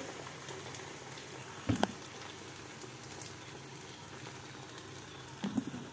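Oil sizzling in a frying pan of diced potatoes as beaten egg is poured over them: a steady hiss, with a short knock about two seconds in and a couple of lighter ones near the end.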